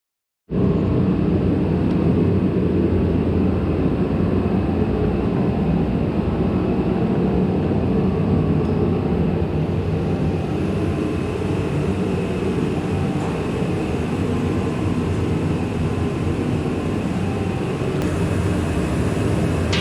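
Steady machinery noise with a low rumble, starting suddenly about half a second in.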